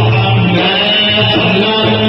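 Low male voices chanting together in a sustained, unbroken drone, a religious chant of supplication.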